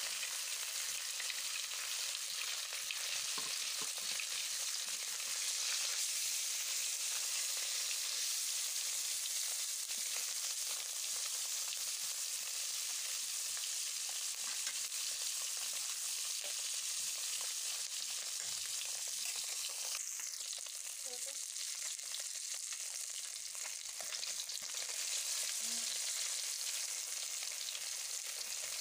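Two taki fish (spotted snakehead) frying in hot oil in a blackened karahi: a steady sizzling hiss.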